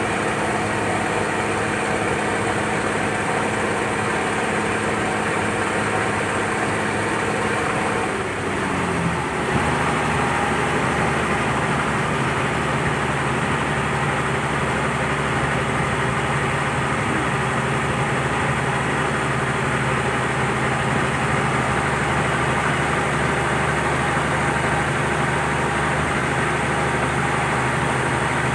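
Turbocharged truck engine powering a boat, running steadily; a little over eight seconds in its note slides down and settles at a lower pitch.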